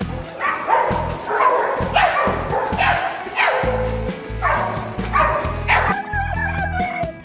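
A dog barking in short, sharp yips, about eight in all, over background music with a steady bass line. The barks stop about six seconds in.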